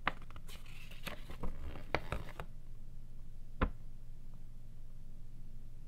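Cardboard box packaging and paper insert being handled: rustling and light taps for the first two and a half seconds, then a single sharp tap a little past halfway, over a steady low hum.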